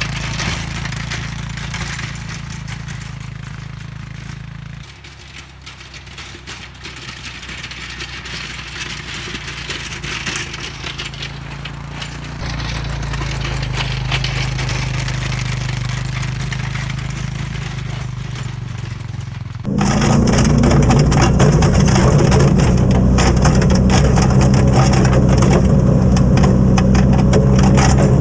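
Honda Foreman 450 ATV's single-cylinder engine running as it pushes snow with a front-mounted plow blade, heard from some way off, its level dipping and rising as it moves. About twenty seconds in the sound turns suddenly much louder and closer, the engine steady under load.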